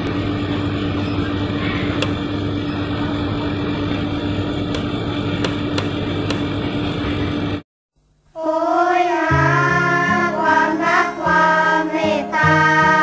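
A steady machine hum with a constant low tone, which cuts off abruptly about seven and a half seconds in. After a brief silence, music with singing starts.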